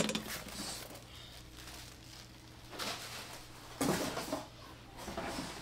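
Soft rustling and knocking as plastic-wrapped air fryer parts are handled, in a few short bursts.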